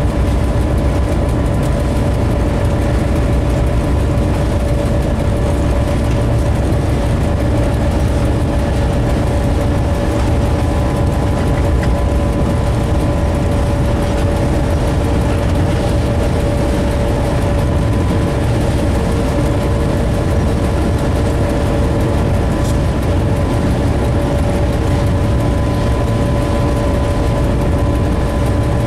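Diesel locomotive engine running steadily, heard from inside the cab: an even low rumble with a steady whine over it.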